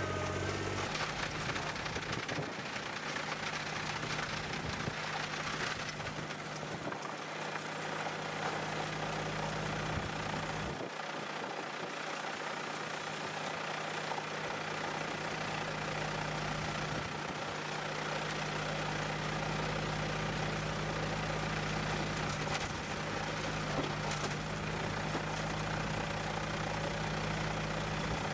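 A Kubota BX25 compact tractor's diesel engine runs steadily beside a homemade electric vibrating soil screener, whose vibrator motor keeps up a steady hum. Soil and stones rattle and pour through the shaking mesh screen.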